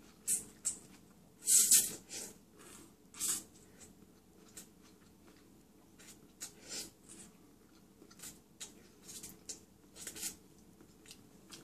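A person slurping instant ramen noodles off a fork: several short, hissy sucks, the loudest in the first four seconds, with fainter slurps later.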